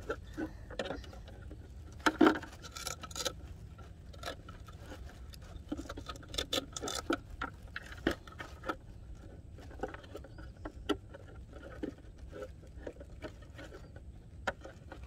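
Irregular clicks, taps and light scrapes of hands handling a Volantex SR65 RC boat's hull and hatch while fitting gear inside it, over a low steady rumble.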